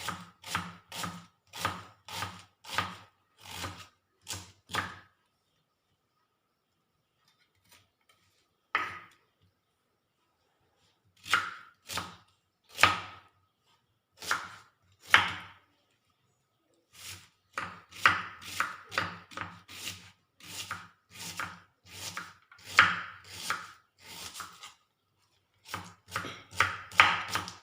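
A kitchen knife chopping onion finely, in a steady run of strikes about two a second, a pause of a few seconds, then further bursts of chopping.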